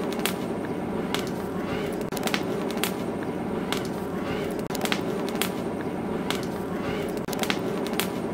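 Background music: a short percussive loop of sharp knocks over a steady hum, repeating about every two and a half seconds.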